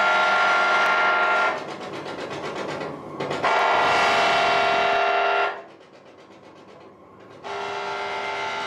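Power-electronics noise from a modular synthesizer and mixer: dense, sustained metallic drones like a blaring horn cut in and out in blocks about two seconds long. The sound drops away sharply about five and a half seconds in and returns more softly about two seconds later.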